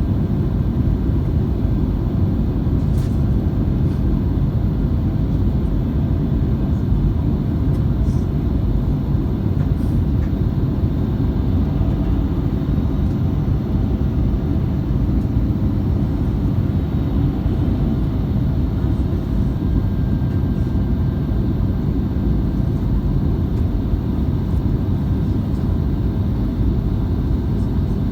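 Steady low roar of a Boeing 737 MAX in flight, heard from inside the passenger cabin: airflow and engine noise, unchanging in level and pitch.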